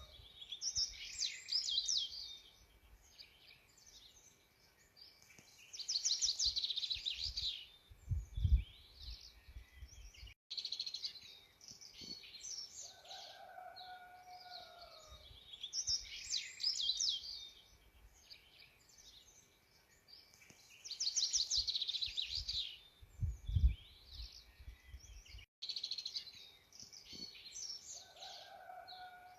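Several songbirds singing and chirping, with trills and a lower whistled call that slides down in pitch. The same stretch of birdsong repeats about every 15 seconds, as a looped recording does. A short low thump, the loudest sound, comes twice.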